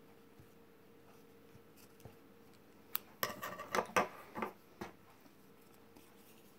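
Metal scissors: a sharp snip about three seconds in, then a short flurry of clicks and rustles as the scissors and ribbon are handled. A faint steady hum lies underneath.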